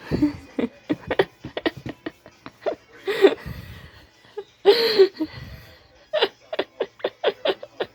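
A person laughing: runs of quick, short giggles, with two longer, louder laughs about three and five seconds in.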